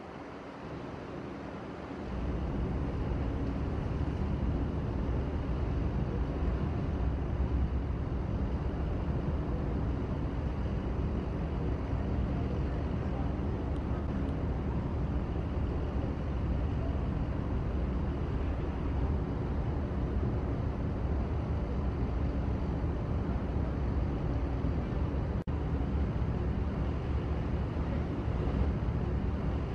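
Steady low engine rumble from tugboats pushing a car carrier alongside a pier, coming up sharply about two seconds in.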